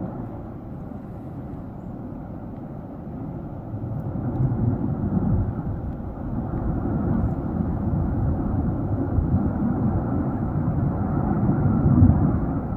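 Low, continuous rumbling roar of the Tajogaite volcano erupting, swelling louder about a third of the way in and rising again near the end.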